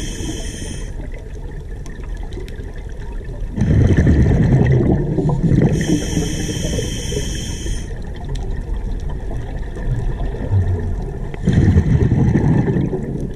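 Scuba diver breathing through a regulator, heard underwater: the hiss of an inhalation through the demand valve about six seconds in, and low, gurgling rushes of exhaled bubbles at about four seconds and again near the end.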